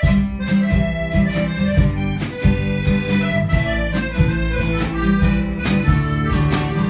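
Band music with a steady beat under a sustained melody.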